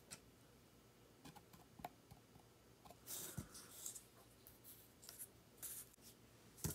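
Faint pen-on-card scratching and small clicks as the edges of a paper-and-card model building are darkened with a felt-tip pen, with brief rustles of the card being handled about three seconds in and again near six, and a louder knock at the very end.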